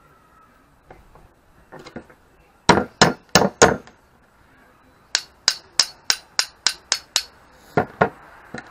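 Hammer striking steel tubing and a rod, with a metallic ring on each blow: four hard blows about three seconds in, then a quick run of about ten lighter taps, and a couple more near the end.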